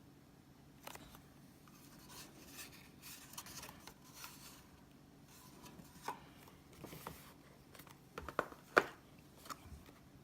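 Hands handling a Zippo lighter and its box: scattered light clicks, taps and rustling, with the sharpest clicks near the end.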